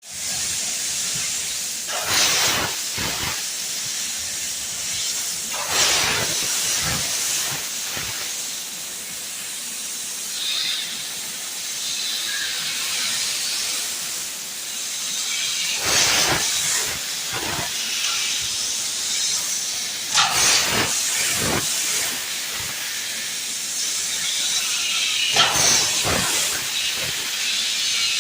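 CNC rotary tube-cutting machine cutting designs into a stainless steel square pipe: a steady high hiss of the cutting jet, with louder crackling rushes every few seconds.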